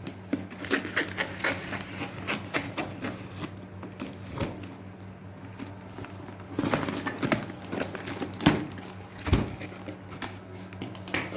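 A cardboard carton being opened by hand: irregular tapping, scraping and tearing of cardboard and tape, busiest in the second half, over a steady low hum.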